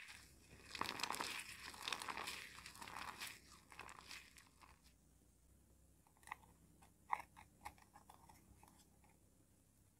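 Dry, crumbly soap squeezed and crushed in the hands: a dense crunching and crackling for the first four seconds or so. It then goes quieter, with a few light clicks as the soap pieces are handled.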